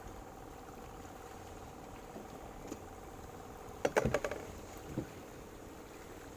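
A cluster of sharp knocks and rattles on a small boat's hull about four seconds in, then one more knock about a second later, as a fishing handline is handled at the boat's rail; a faint steady hum lies underneath.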